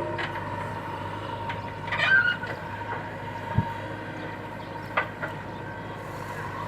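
Backhoe loader's diesel engine running steadily, with a few clanks and a dull thud from the machine's work.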